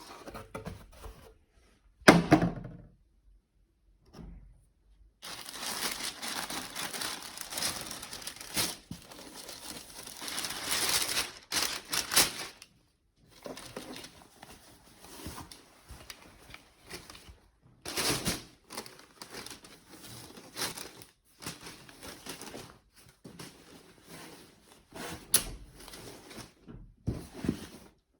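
Packaging being opened and handled by hand: crinkling, rustling and tearing in irregular spells, with a short sharp knock about two seconds in.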